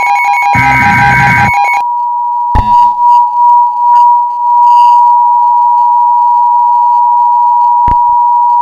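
Emergency Alert System alert: a screeching burst of rapid on-off data tones (the digital header) for about the first two seconds, then the steady, piercing attention tone that runs on to the end. A sharp click comes about two and a half seconds in and another near the end.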